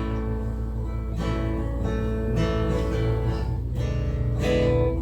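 Acoustic guitar being strummed, ringing chords with a fresh strum every second or so.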